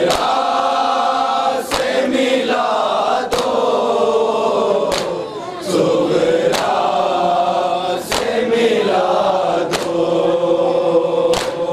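A group of men chanting a nauha, a Shia Muharram lament, in unison, their voices held on long notes. Sharp slaps of hands striking chests (matam) cut through about every second or so.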